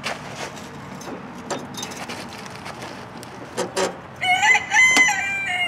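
A rooster crowing once, a single drawn-out call starting about four seconds in, over a few faint clicks and knocks of a lawn tractor's parking brake being set.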